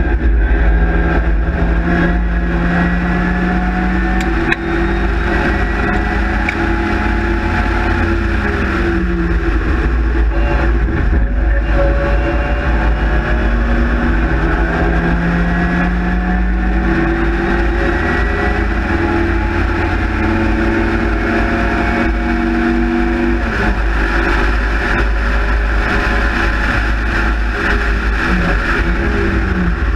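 Race car engine under hard acceleration, heard from inside the open cockpit. Its pitch climbs for a few seconds and then drops back, again and again, as it accelerates and shifts, over a steady rush of wind.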